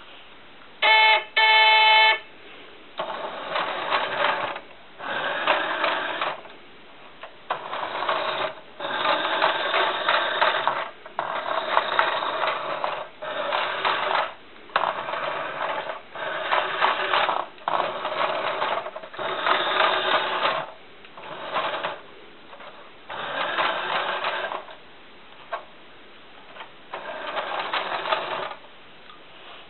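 Two loud beeping tones about a second in. Then a toy car's small electric motor whirs in repeated bursts of a second or two, with short pauses, as it drives, stops and drives again.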